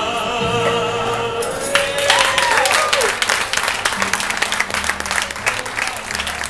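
A pizza chef singing opera over a backing track, finishing on a held, sliding note; applause breaks out about two seconds in and carries on over the last low notes of the music.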